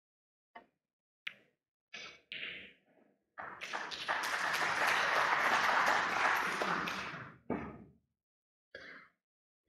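Snooker balls clicking as the break-off is played: the cue ball strikes, clips the pack of reds and runs off the cushions. This is followed by a burst of audience applause lasting about four seconds.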